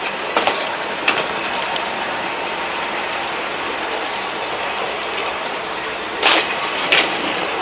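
Diesel railcar train rolling slowly along the track: a steady running noise with sharp wheel clacks over rail joints, a louder pair of clacks about six seconds in.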